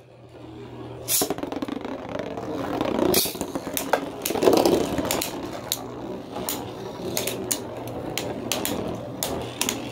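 Beyblade spinning tops whirring and scraping across a plastic sled dish, with irregular sharp clicks as they hit each other.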